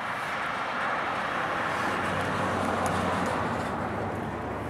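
Pickup truck towing an enclosed cargo trailer driving past on the road: tyre and engine noise swelling to a peak about three seconds in, then fading away.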